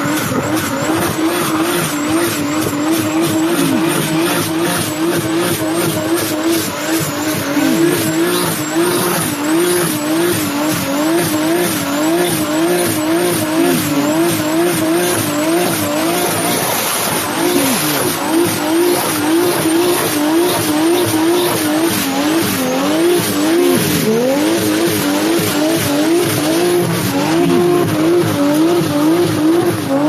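Racing-car sound effect: an engine note that wavers up and down about once a second, over tyre-squeal noise and a fast regular clicking.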